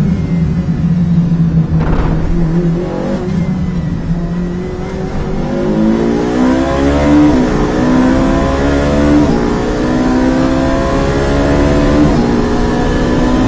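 Ferrari 458 Challenge's V8 heard from inside the cockpit: it runs low and steady while the car slows for a tight corner, then accelerates hard from about six seconds in, its pitch climbing through several upshifts.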